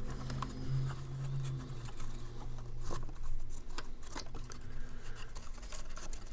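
Cardstock being handled and folded by hand: scattered small taps, clicks and rustles of paper.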